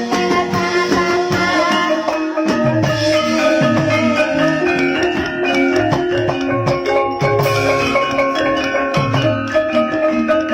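Banyumasan gamelan music: a dense run of mallet-struck pitched notes playing interlocking patterns, with drum strokes underneath.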